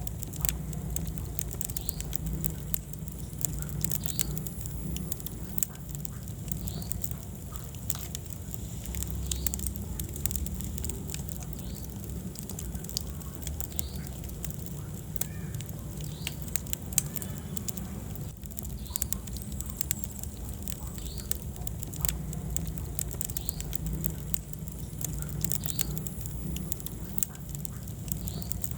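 Wood fire burning in a fireplace: frequent sharp crackles and snaps over a steady low rumble of the flames, with one louder pop a little past halfway.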